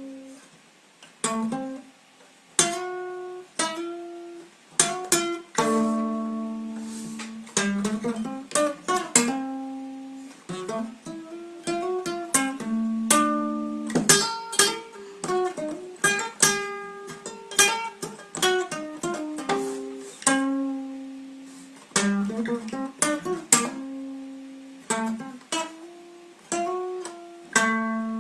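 Solo acoustic guitar: chords strummed and left to ring, one after another at an uneven, unhurried pace with short pauses between them.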